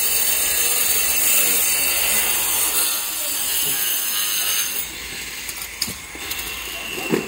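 Handheld angle grinder cutting a red clay floor tile, a loud steady high hiss that stops about five seconds in, followed by a few light knocks.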